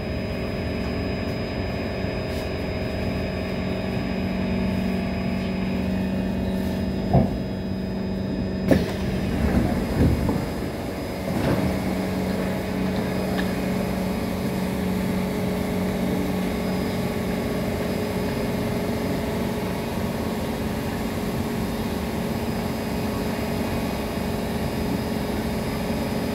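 Interior of a C151 metro train pulling into a station and coming to a stop: a steady hum from the train's motors and equipment, with a few knocks and a brief pitch glide about a third of the way in as it halts. A steady hum carries on while it stands at the platform.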